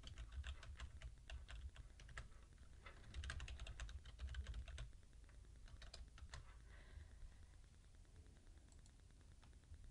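Typing on a computer keyboard: faint, irregular key clicks, busiest about three to five seconds in.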